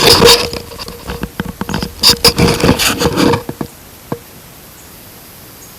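Close rustling and scraping handling noises with many small clicks, as bait and fishing gear are handled. The noises stop about three and a half seconds in, leaving a steady faint hiss.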